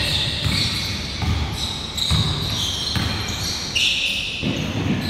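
A basketball bouncing on a hardwood gym floor in an irregular run of thumps, with high squeaks from sneakers on the court.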